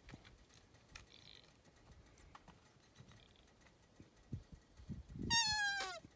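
One loud, high bleat made with a human voice to imitate a mule deer and call deer in, near the end; it slides down in pitch and drops sharply as it ends. Before it, only faint scattered rustles and clicks.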